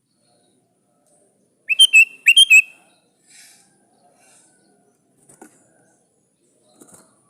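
Sooty-headed bulbul calling out to a rival: two short phrases in quick succession, about half a second apart, each opening with a rising note. A few faint clicks follow near the end.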